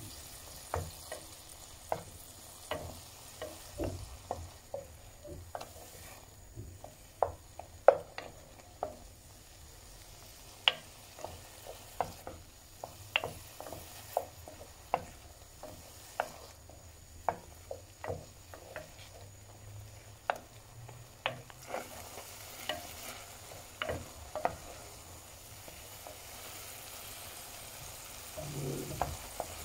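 Mushrooms and garlic frying in oil in a pan and stirred with a wooden spoon: a steady soft sizzle with frequent sharp irregular clicks and pops, which thin out near the end, where there is one louder stir.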